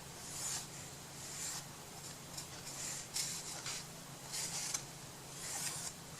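Short, light rubbing strokes on a craft surface, roughly one every second, over a steady low hum.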